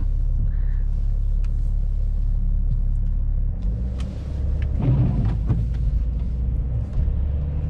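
Steady low rumble of a BMW X5 driving on snowy roads, heard inside the cabin: engine and tyre drone, its low note shifting about three and a half seconds in.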